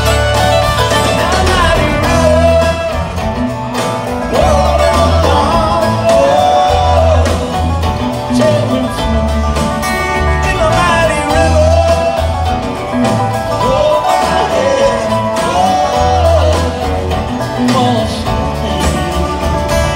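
Live bluegrass band playing at full volume: banjo, acoustic guitar and upright bass under a gliding melody line, with a steady bass pulse.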